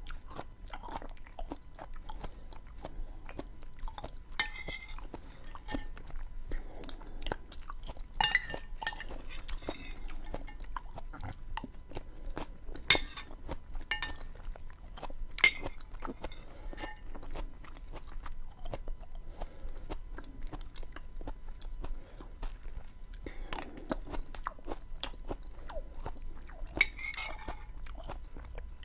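Close-miked chewing of beans with onion and tomato: wet mouth crackles, smacks and soft crunches, with a few sharp clicks now and then.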